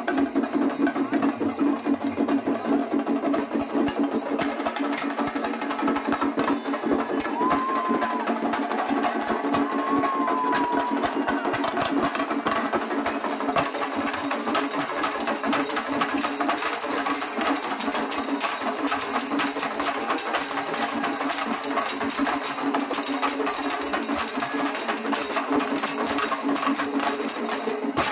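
Shinkari melam ensemble playing: chenda drums beaten with sticks in a fast, dense, unbroken roll, with elathalam hand cymbals ringing over it.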